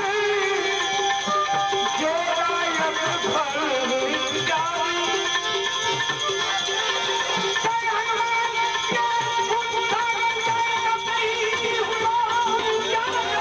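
Gujarati folk music: a wavering melody over sustained tones, with hand percussion and a jingling rattle keeping the beat.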